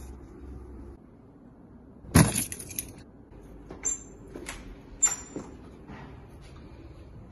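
A bunch of keys jangling, with metal clicks as a door is handled. There is one loud clatter about two seconds in, then several shorter, ringing jingles and clicks.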